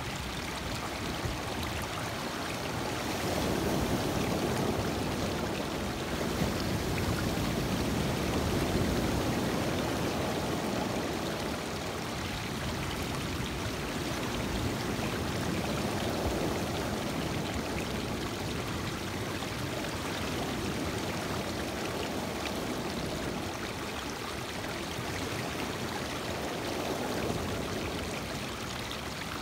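Lake waves washing in over a stony shore and running back among the rocks: a continuous rush of water that swells a few seconds in and eases after about ten seconds.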